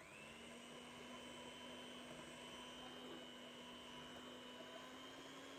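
Nikai electric hand mixer running, its beaters spinning in thick ube batter in a glass bowl. The motor whine rises in pitch as it starts up, then holds steady.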